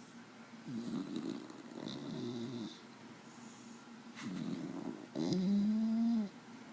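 A sleeping dog snoring, with about four rasping breaths in a slow rhythm. The last and loudest breath carries a steady pitched note for about a second near the end.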